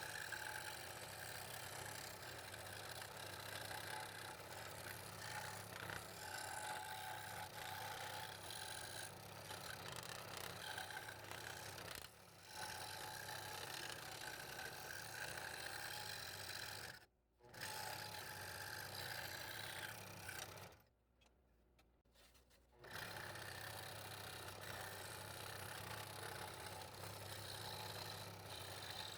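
Scroll saw running steadily while cutting fretwork in wood. The sound breaks off twice in the second half, once for a moment and once for about two seconds.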